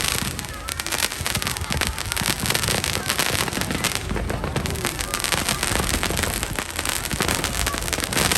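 Fireworks display: a dense, unbroken crackle of many small bursts going off in quick succession.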